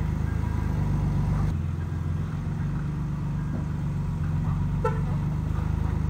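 Heavy diesel engine of earthmoving machinery running steadily, its note dropping and getting heavier about a second and a half in as it takes on load. A brief high chirp sounds about five seconds in.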